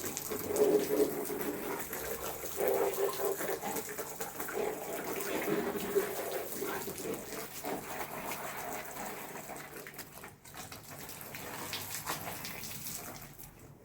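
Water running and splashing, fading toward the end.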